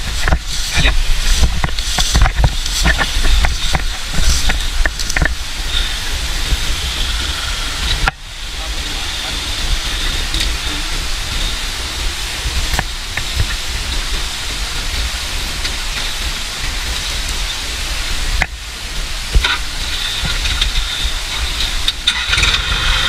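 Kubota tractor's diesel engine running under a steady hiss, with no change in engine note.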